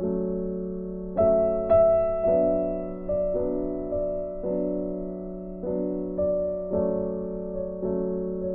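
Background music: a gentle piano-like keyboard playing slow notes, each struck and left to ring and fade.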